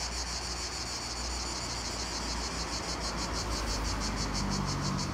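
Cicadas singing: a steady, high, rhythmic drone pulsing several times a second.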